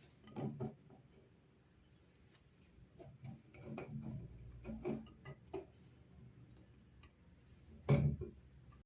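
Workshop handling noise: a scattered series of light knocks and clicks as wooden parts and tools are picked up and set down, with one louder knock near the end.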